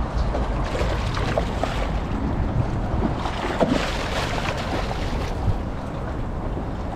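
Wind buffeting the microphone over choppy water, with water splashing as a hooked black drum thrashes at the surface, loudest about three and a half seconds in.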